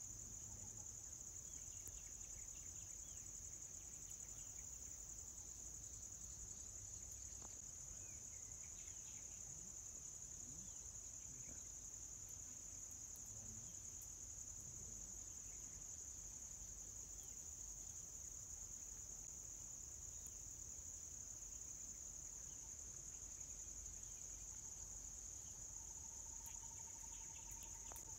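Steady, high-pitched, unbroken drone of insects in the forest, with a few faint bird chirps. A fainter, lower steady tone joins near the end.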